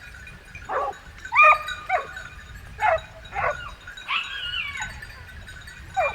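A pack of hunting dogs yelping and baying, short sharply falling yelps about every half second to a second, with one longer drawn-out bay a little past the middle.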